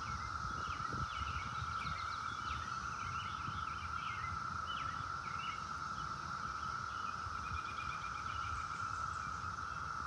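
Chorus of many cicadas: a steady, unbroken high drone. Small birds chirp over it now and then.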